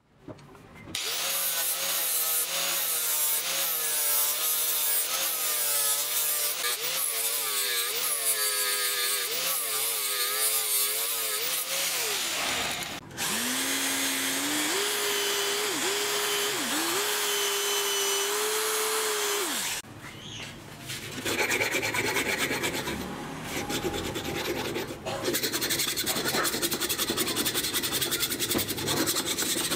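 Power drill spinning a pink mounted grinding stone inside the eye of an old axe head to grind out rust. For the first dozen seconds the motor's pitch wavers up and down under load; after that it runs at a steadier pitch with two brief dips. From about twenty seconds in there is a rhythmic rasping scrape as a long flat bar is worked back and forth through the eye.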